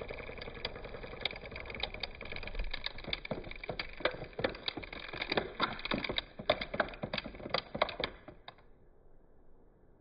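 Engine sound with a rapid, irregular clatter of clicks over a steady running noise, stopping abruptly about nine seconds in.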